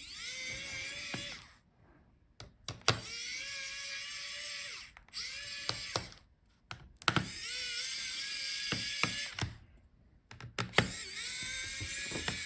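Small electric screwdriver backing out the laptop battery's screws: five short runs of motor whine, each rising in pitch as it spins up, with sharp clicks in the pauses between runs.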